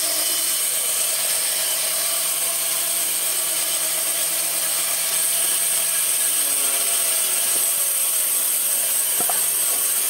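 Large vertical sawmill band saw running and cutting lengthwise through a log, a steady hiss.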